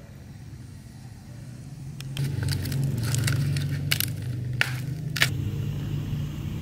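Crisp crackling and snapping of cabbage leaves and stalk as a head of cabbage is twisted and broken off the plant by hand, a dozen or so sharp cracks with two louder snaps near the end, over a steady low hum.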